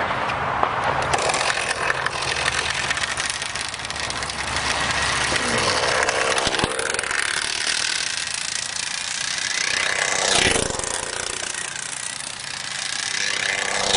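High-speed RC car running, its motor whine gliding up and down in pitch, with two loud swells as it passes close, one about ten seconds in and one near the end.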